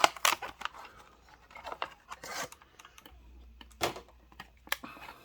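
Plastic blister packaging and cardboard backing cards of die-cast toy trucks being handled and pried at: irregular sharp clicks and short crackles of stiff plastic.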